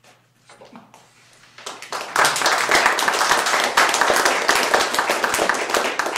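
Audience applauding, building up about two seconds in and starting to die away near the end.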